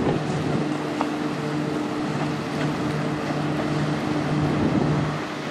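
Passing bulk carrier's machinery humming steadily in a low drone, over wind and rushing water; the hum drops out near the end.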